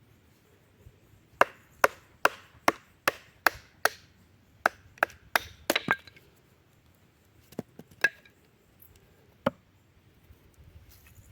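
Knife being batoned through wood: a series of sharp wooden knocks, about two or three a second at first, then a quick cluster and a few scattered strikes near the end.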